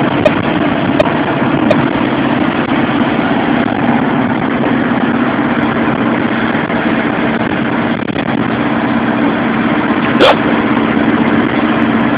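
Motorhome driving at motorway speed, heard from inside the cab: a steady engine drone mixed with tyre and wind noise. A short sharp knock sounds about ten seconds in.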